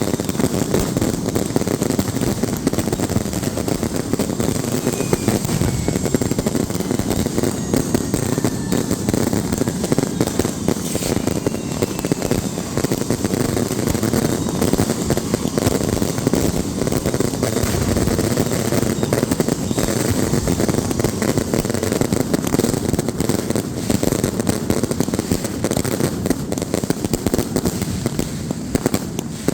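Fireworks going off in a dense, continuous barrage of rapid pops and bangs.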